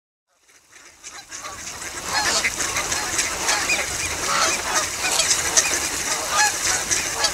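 A flock of geese honking, with many calls overlapping. It fades in from silence over about the first two seconds.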